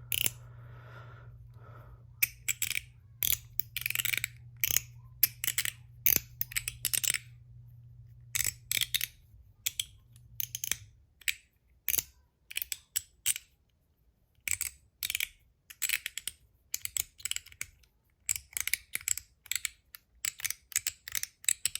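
Stainless steel MOT Groove mechanical slider fidget being slid back and forth: runs of crisp clicks, each with a little metallic ding after it. A faint low hum sits underneath for roughly the first half.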